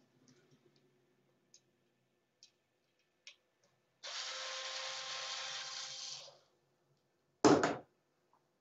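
A few light clicks of parts and tools being handled, then a small electric screwdriver or drill runs steadily for about two seconds, backing out a bracket bolt. A loud double clack follows near the end.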